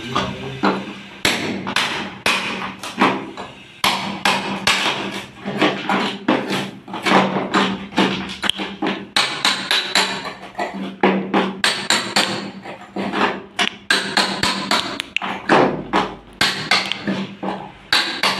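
Hammer striking a hand chisel over and over, chipping concrete, in irregular runs of about two to three blows a second with short pauses between.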